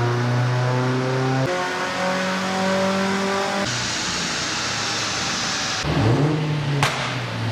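Car engines running at held revs, the note jumping abruptly to a higher steady pitch about a second and a half in. Then comes a loud hissing rush, and near the end an engine revs briefly with a sharp click.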